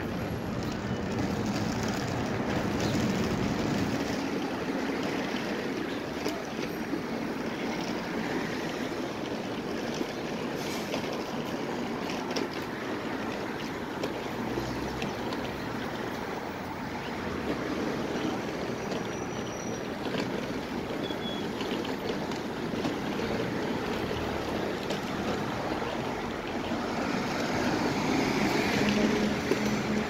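Steady city street noise: a continuous wash of traffic with no single event standing out.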